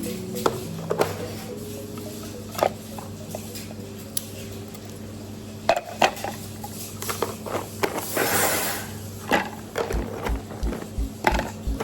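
Soft background music with held notes, over scattered sharp clicks and knocks like dishes or cutlery being handled. There is a short hiss a little past the middle, and a low thudding beat comes in near the end.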